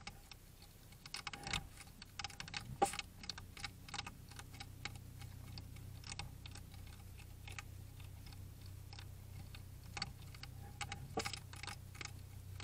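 Two European hedgehogs eating, their chewing heard as irregular crisp clicks and crunches over a steady low hum. The clicks are busiest in the first few seconds and again near the end.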